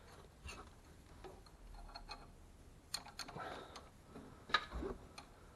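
Faint, scattered light clicks and taps, a handful over a few seconds, from small metal and plastic parts being handled: the clutch hydraulic pipe and its joiner fitting.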